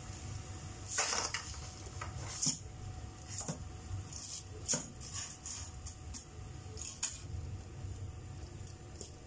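Dry spaghetti being pushed into a pot of boiling water: a scattered series of sharp clicks and light scrapes as the stiff strands knock against the pot, over a steady low rumble.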